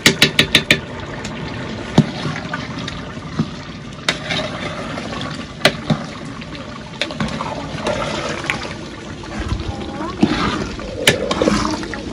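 A metal spoon rapped about six times in quick succession against metal, then occasional clinks and the wet slosh of thick potato-and-tomato stew being stirred in a large aluminium pot.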